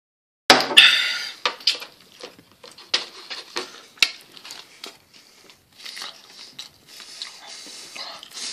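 A person crunching and chewing food close to the microphone. A loud sudden noise comes about half a second in, then sharp crunches and clicks over the next few seconds, and softer chewing toward the end.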